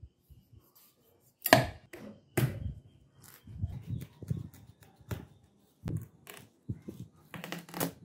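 Kitchen knife cutting through the rind of a whole watermelon: two sharp, crisp cracks about one and a half and two and a half seconds in, softer scraping and knocks between, and another run of cracks near the end.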